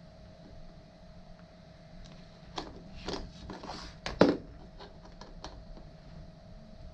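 Several clicks and knocks of hard parts being handled, the loudest a sharp knock about four seconds in, over a steady low hum.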